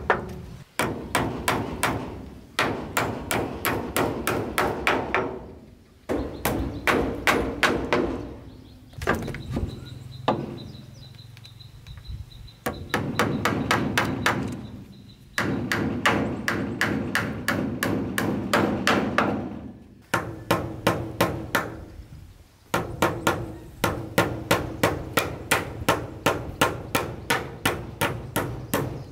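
Hammer blows on wood, as in nailing boards: runs of quick, even strikes, about three a second, broken by short pauses.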